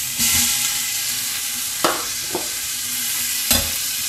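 Grated carrot and chopped onion sizzling steadily in hot rendered bacon fat in an Afghan kazan, the start of a frying base for soup. A few short knocks of utensils against the pot come as the vegetables are stirred.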